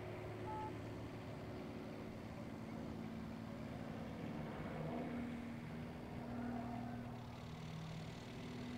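Extra 300L aerobatic plane's Lycoming six-cylinder engine and propeller, a faint, steady drone from high overhead whose pitch shifts a few times as the plane manoeuvres.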